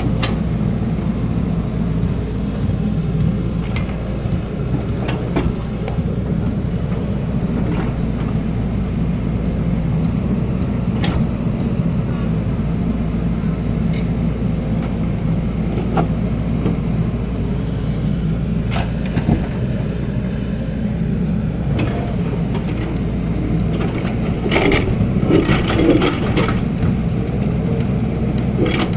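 Excavator's diesel engine running steadily as it digs, with scattered knocks and clicks and a stretch of clattering about 25 seconds in.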